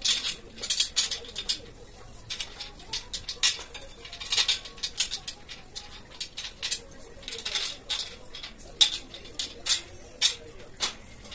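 Steel shelf-rack frame being fitted together by hand: many irregular light clicks, taps and scrapes of metal parts as the top crossbar is worked onto an upright post.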